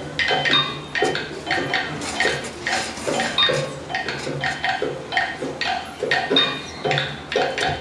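Percussion music of short struck notes that ring briefly, in a steady rhythm of about three strikes a second.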